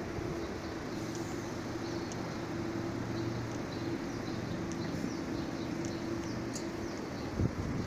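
A Metrovalencia 4300-series electric train stands at the platform, its equipment giving a steady, level hum. Small birds chirp over it, and a brief knock comes near the end.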